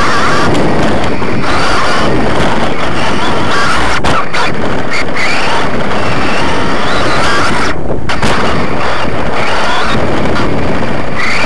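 Onboard sound of a 2WD electric RC off-road buggy with a 17.5-turn brushless motor driving on dirt: the motor's whine rises and falls with the throttle over a loud rumble of tyres on dirt and chassis vibration. The whine and rumble fall away briefly a few times, most clearly about eight seconds in.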